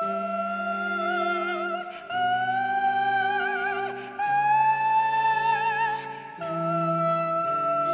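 Slow contemporary chamber music: a high sustained melody line with touches of vibrato, stepping up in pitch twice and falling back near the end, over held low notes that change chord roughly every two seconds.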